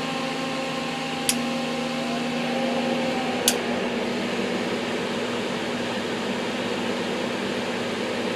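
Small all-metal solder fume extractor fan running steadily with its filter out: an even rush of air off the blades over a steady hum, with a "bladey", "strained" sound. Two faint ticks come about a second and three and a half seconds in.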